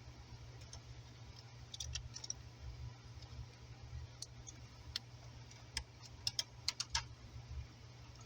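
Scattered light metallic clicks and taps of a small flat screwdriver and copper wire being worked at the push-in terminal on the back of an electrical outlet, with a quick cluster of clicks after the middle, over a steady low hum.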